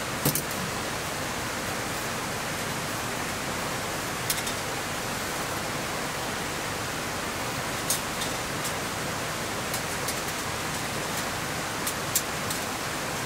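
Steady rain falling, with scattered sharp ticks of single heavier drops landing now and then.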